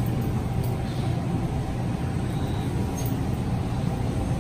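Car driving: a steady low engine and road rumble.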